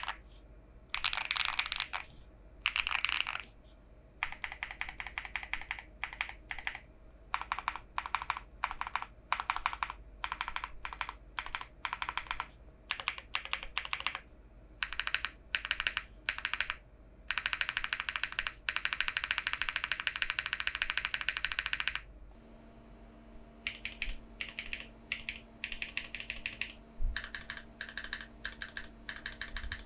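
Typing on a Haven TKL mechanical keyboard with Gateron SLAY Type R switches and PBTFans Pyga PBT keycaps. The keystrokes come in bursts separated by short pauses, with a longer unbroken run of fast typing past the middle.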